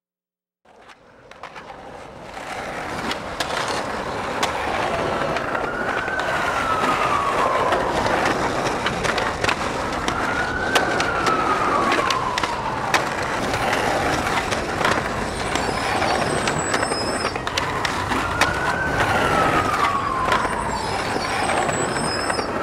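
Busy city street noise fading in over the first few seconds: traffic, with an emergency-vehicle siren wailing in slow rise-and-fall sweeps every few seconds. Sharp knocks and clicks are scattered throughout.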